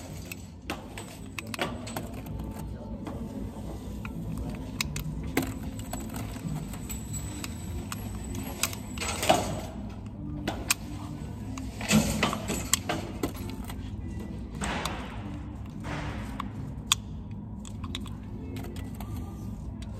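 Cartridges clicking into a handgun magazine as it is loaded by hand, small metal-on-metal clicks and clinks, with a few louder sharp bangs, the loudest about nine seconds in.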